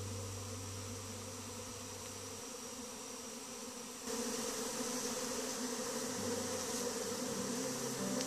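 Many honeybees buzzing in flight around a hive, a steady dense hum that gets louder about four seconds in.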